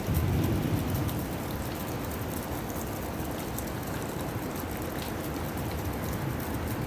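Heavy rain falling steadily in a thunderstorm, with a low rumble of thunder easing off in the first second.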